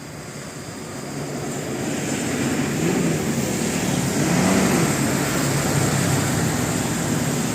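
Road vehicle coming closer, its engine and road noise growing louder over the first three seconds and then holding steady.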